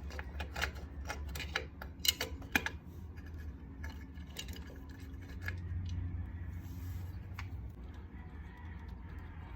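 Small metallic clicks and taps as an outdoor outlet's cover and screws are worked loose with a Phillips screwdriver. The clicks come thick in the first few seconds and then thin out over a steady low background rumble.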